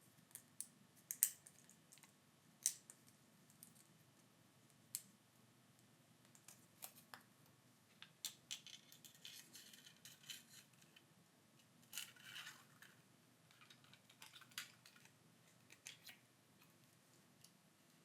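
Faint scattered clicks and taps, with spells of soft crinkling, from handling a smartphone replacement screen by hand and peeling off its protective foil.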